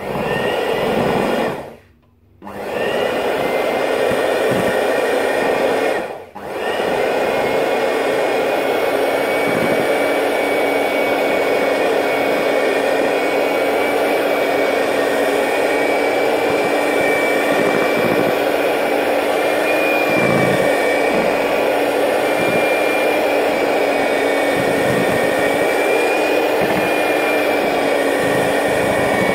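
Electric hand mixer running at low speed, its beaters whipping cream cheese frosting with powdered sugar in a plastic bowl. The motor runs with a steady high whine, cuts out briefly twice in the first six seconds, then runs without a break.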